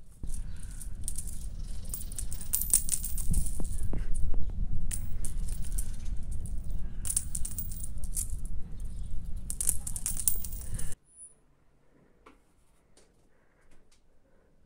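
Small objects rattled in cupped hands over a low wind rumble on the microphone. About eleven seconds in the sound cuts off to near quiet with a few faint clicks.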